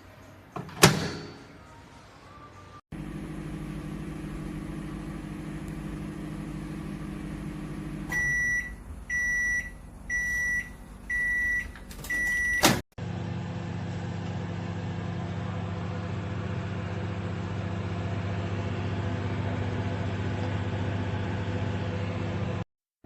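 Sharp R-22A0 microwave oven running with a steady hum, then going quiet and sounding five short high beeps to signal the end of the cooking cycle. A sharp click comes after the beeps, and the oven then runs humming again. An earlier loud click, about a second in, fits the door being shut.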